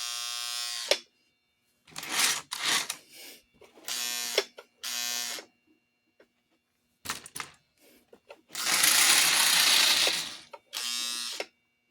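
Vintage 1950s Lionel toy train locomotive's electric motor running in short spurts, buzzing with a steady hum and stopping in between; the loudest spurt, about nine seconds in, is a harsh whirring rattle. It runs rough and shattery, which the owner puts down to dry gearing that needs oil.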